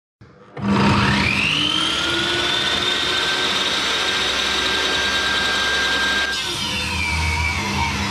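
A table saw motor starts, its whine rising as the blade spins up to speed over about a second, then runs steadily. About six seconds in the blade starts cutting a rough live-edge board, and the pitch drops and wavers under the load.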